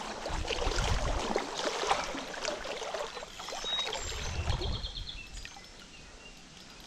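Water in a small stream splashing and rushing, busiest in the first few seconds, with low rumbles twice and quieter near the end.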